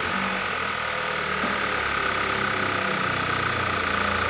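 Car engine idling steadily, just after being started, with a steady high-pitched whine running along with it.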